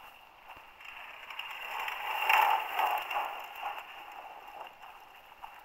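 Small light aircraft on its landing rollout on a grass runway, its engine noise swelling as it nears, loudest a little past two seconds in, then fading, mixed with wind noise on the microphone.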